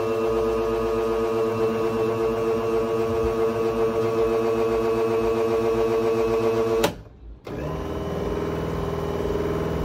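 Countertop blender motor running with a steady whine, labouring on a thick pudding mix. It cuts off abruptly about seven seconds in and starts again half a second later.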